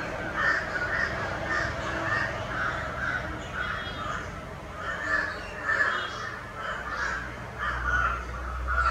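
Birds calling over and over, a short harsh call about twice a second. A low rumble comes in near the end.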